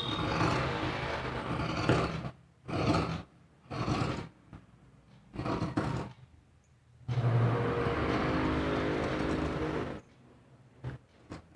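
Tailor's scissors cutting through blouse fabric on a wooden table, the blades rasping through the cloth: a long cut at the start, three short snips, then another long cut that stops about ten seconds in.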